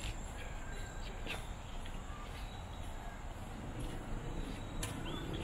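Outdoor ambience: a steady low background noise with a few faint bird calls and some sharp clicks, the clearest just over a second in and near the end.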